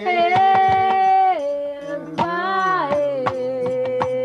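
A song playing: a singer holds long notes that step from one pitch to another, over a steady beat of sharp percussive clicks.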